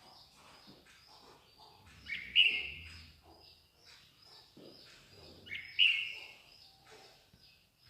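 Songbirds chirping in a rapid run of short high notes, with two much louder, harsher calls about three and a half seconds apart.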